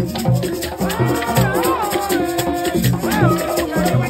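Senegalese football supporters' band playing: a steady drum beat about twice a second with shakers rattling over it, and a voice singing a rising and falling chant line.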